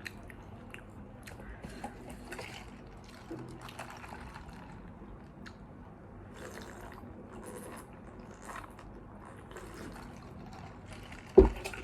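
Faint, wet chewing and mouth clicks of someone eating close to the microphone, with one dull thump near the end.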